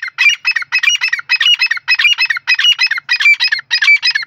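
Grey francolin (teetar) calling: a loud, rhythmic run of high-pitched repeated calls, about two a second, with no pause.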